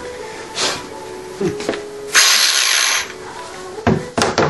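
An angle grinder being handled and set down on a metal workbench: scattered clicks and knocks of the tool body, a brief scraping hiss just over two seconds in lasting under a second, and a quick run of knocks near the end.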